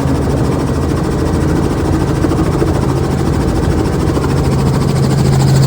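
Helicopter running steadily, its rotor and engine growing louder near the end.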